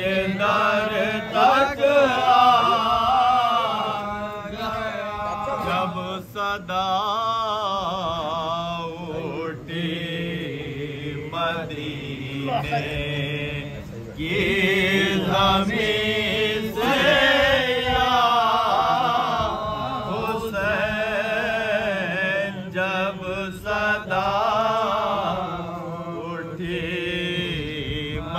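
Men's voices chanting soz, a mourning elegy sung without instruments: a lead reciter with a group of men joining him, in long wavering sung lines broken by short pauses.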